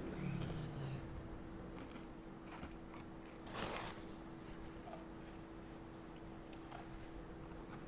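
Quiet eating of pork noodle soup: one short slurp about three and a half seconds in, and a few light clicks of utensils near the end, over a steady low hum.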